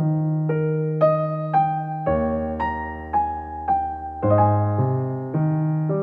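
Background piano music: single notes struck about two a second, each fading, over held low bass notes that change twice.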